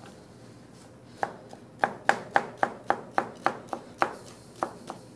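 Chef's knife dicing pineapple on a cutting board: quick, even chops, about three or four a second, starting about a second in.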